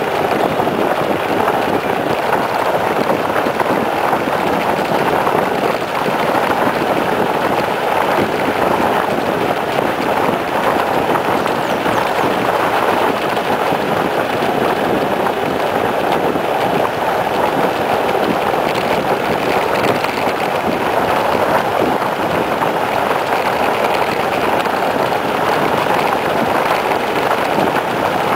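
Steady rushing of wind on the microphone and tyres rolling on asphalt as a mountain bike descends a paved road at speed.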